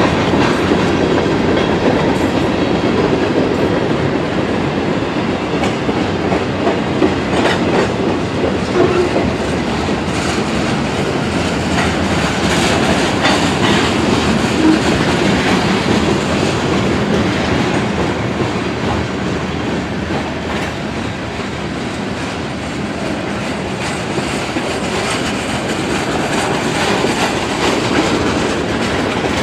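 Freight train cars (gondolas, boxcars and covered hoppers) rolling past: a steady rumble of steel wheels on rail, with the clickety-clack of wheels over rail joints.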